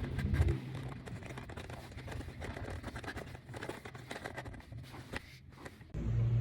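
Irregular light clicks and rustling from parts being handled up close, with a steady low hum starting abruptly near the end.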